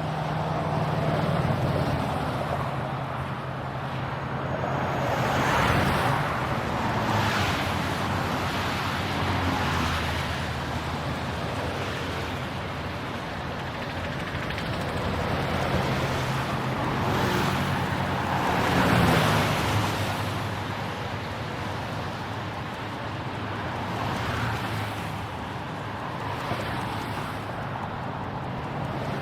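Road traffic: a steady wash of tyre and engine noise with a low hum underneath, swelling and fading every few seconds as vehicles pass.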